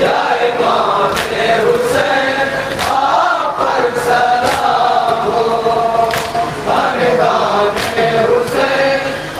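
A group of men chanting a nauha, an Urdu mourning lament, in unison through a PA microphone. Sharp slaps of hands striking chests in matam cut in every so often.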